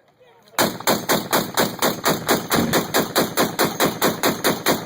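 Machine gun firing one long sustained automatic burst, starting about half a second in, with evenly spaced shots at roughly six or seven a second that are still going at the end.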